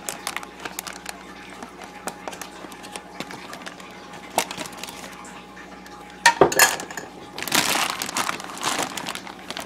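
Kitchen dishes and utensils clinking and knocking, with a sharper double knock a little past the middle, then a few seconds of louder rustling handling noise near the end.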